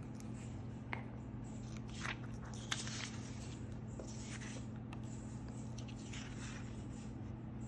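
Glue stick rubbing over paper and dry, brittle dictionary paper rustling as it is pressed down and handled: a handful of short scrapes and crinkles, the sharpest a little under three seconds in, over a faint steady low hum.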